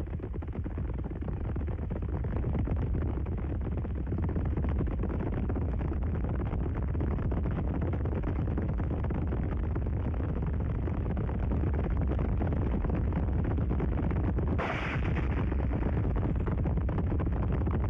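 Continuous heavy low rumble of a herd of zebras galloping, hooves drumming together with no single beats standing out. A short sharp noise cuts through about fifteen seconds in.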